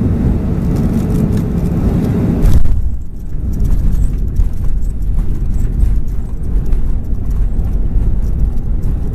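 Boeing 737-400 touching down, heard from the cabin over the wing: the steady rush of air and engines on short final ends in a jolt about two and a half seconds in. After that the higher rush drops away and the wheels roll on the runway with a deep rumble, while cabin fittings rattle.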